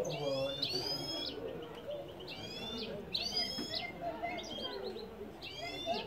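Caged European goldfinch singing: a series of short, high twittering phrases of quick gliding notes, one after another.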